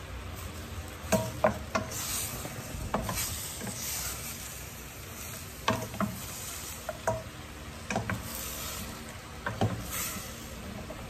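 Chunks of meat being stirred with a spatula in a stainless steel pot as they sear in hot oil. The spatula knocks and scrapes against the pot about once a second over a steady sizzle.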